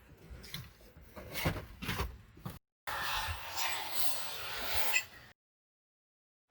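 Scattered light knocks and rubbing, like things being handled, then after a sudden cut about two and a half seconds of steady hiss-like noise that stops abruptly.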